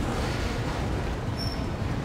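Double-stack intermodal freight train passing: steady rolling noise of loaded container well cars on the rails. A short high squeal comes about a second and a half in.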